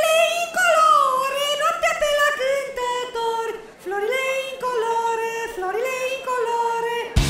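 A high-pitched cartoon voice singing a Christmas carol (colindă) in long held notes that slide between pitches. It breaks off sharply near the end with a sudden loud onset.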